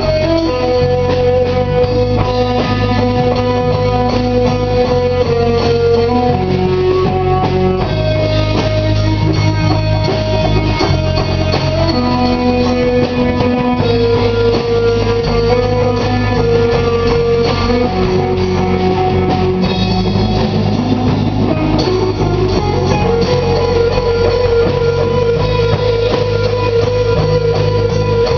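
Live stoner-rock band playing instrumentally: electric guitars hold long sustained lead notes that step from pitch to pitch over drums and a heavy, steady low end, with a sliding rising note about twenty seconds in.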